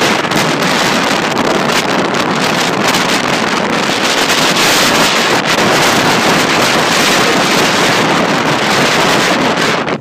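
Loud, dense din of a large roosting flock of blackbird-like birds calling all at once, a steady wall of overlapping chatter that cuts off suddenly near the end.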